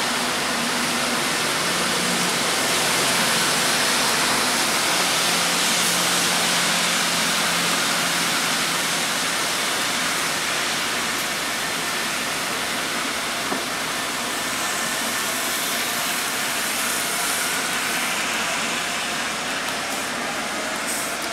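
Taipei Metro Wenhu Line rubber-tyred automated train running along the elevated guideway: a steady rushing hiss of tyres and traction equipment. A faint motor whine comes in near the end as the next train approaches the platform.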